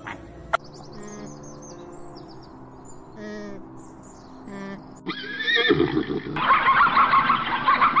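Zebra calling: a loud, high whinny-like bray that wavers in pitch, starting suddenly about five seconds in, over soft background music.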